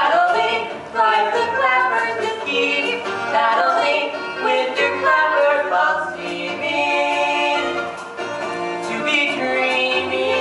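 Musical-theatre song: a children's theatre cast singing over instrumental backing accompaniment.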